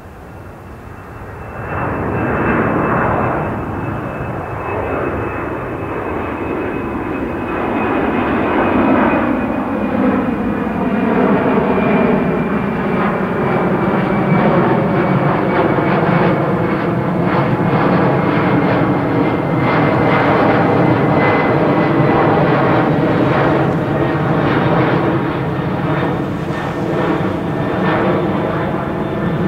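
Boeing 767-300ER jet airliner taking off, its engines at takeoff power. The noise jumps up sharply about two seconds in, then runs loud and steady with a high whine slowly falling in pitch.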